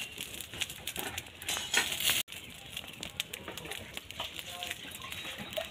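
Dry straw fire crackling and popping under a goat skin held in the flames to singe off its hair. The crackling is loudest about two seconds in, cuts out for an instant, then carries on more quietly.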